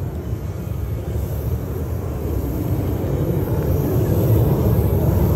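Jet engines of a formation of Red Arrows BAE Hawk jets flying past, a low rumble that grows gradually louder.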